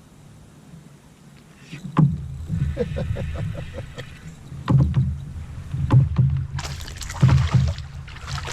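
Knocks and low rumbling of things handled against a fishing kayak's hull, starting about two seconds in. A short run of quick clicks follows, and a splash of water comes near the end.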